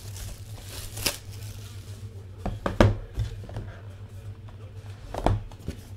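A box of trading cards handled close to the microphone: a few sharp knocks and light rustling of cardboard, the loudest knock about three seconds in, over a steady low hum.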